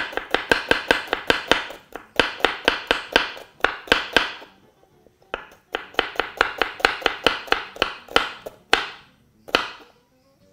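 Chef's knife slicing a halved red onion on a wooden cutting board: quick runs of sharp knocks on the board, about seven a second, broken by short pauses and slowing to a few single cuts near the end.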